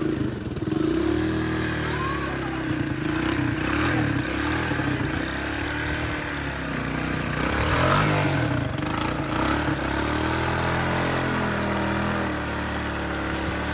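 Honda three-wheeler's engine revving up and down repeatedly under load as it churns through deep mud and water, the pitch rising and falling over and over.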